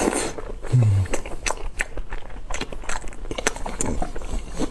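Close-miked chewing and biting of lamb trotters: a run of wet smacking clicks and crunches from the mouth, with a short low hum about a second in.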